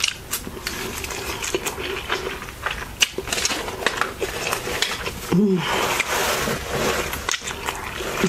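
Close-miked chewing and wet mouth clicks from eating a burrito, with a bite about four seconds in. About five seconds in comes a brief low vocal moan, and the chewing is denser after it.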